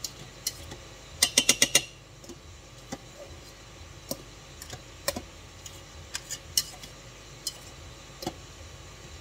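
A metal utensil clicking and scraping against the stainless steel inner pot of an electric pressure cooker as cooked rice is fluffed and stirred. A quick run of about six sharp clicks about a second in is the loudest, followed by scattered single clicks.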